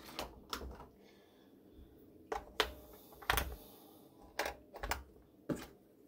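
Scattered sharp clicks and light knocks of AAA batteries being handled and pressed into the plastic battery compartment of a slim wireless keyboard, and of the battery cover being picked up.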